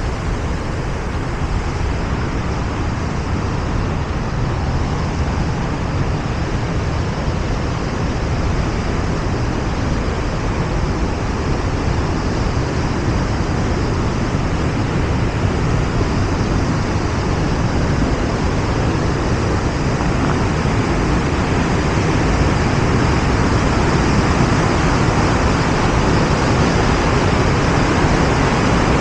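Waterfall: a loud, steady rush of falling water, growing a little louder near the end.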